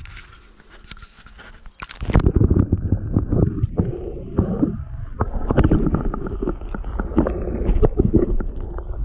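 Wind buffeting the microphone: a low, uneven rumble that starts abruptly about two seconds in, after a quieter stretch with a few light clicks.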